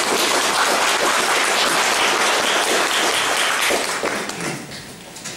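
Audience applauding, steady at first, then fading over the last second or so.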